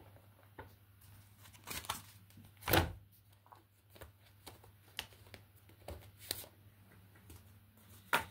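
Small paper cards being handled and shuffled: scattered soft rustles and taps, with one louder thump about three seconds in.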